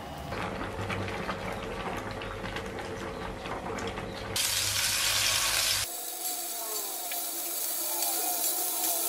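A saucepan of stew bubbling while a wooden spoon stirs it, with small clicks and scrapes. A loud hiss comes in about halfway and stops suddenly. Then shrimp sizzle in melted butter in a frying pan, with light chirping pops.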